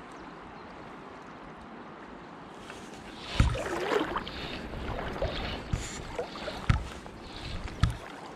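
Steady rush of the river current around a wading angler. About three seconds in, loud irregular rustling and thumps start as a fabric jacket sleeve rubs against the body-worn camera's microphone while the fly line is handled.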